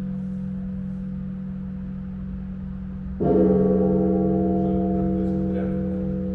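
Russian Orthodox church bell struck once about three seconds in, sounding a cluster of ringing tones that slowly die away. Beneath it the low hum of the bell's earlier stroke rings on throughout.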